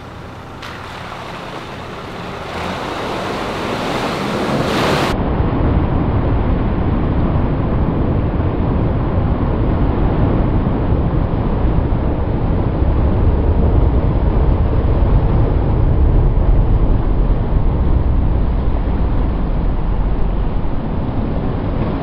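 Nissan Navara four-wheel drive ploughing through a muddy water crossing: a continuous wash of churning, surging water over a deep rumble. It grows louder over the first few seconds, then holds steady.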